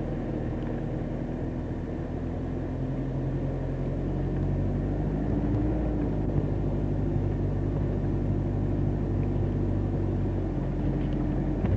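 Vehicle engine running steadily as it drives slowly along a rough forest road, a little louder from about four seconds in.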